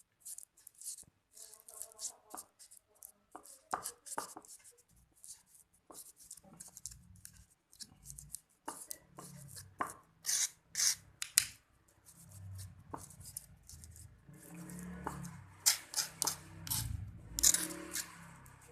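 Hand rubbing and scraping: quick, irregular scratchy strokes that grow denser and louder in the second half, over a low handling rumble.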